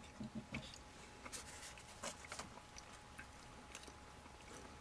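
Faint scattered clicks and rustles of hands handling multimeter test leads and a circuit board, over a faint steady hum.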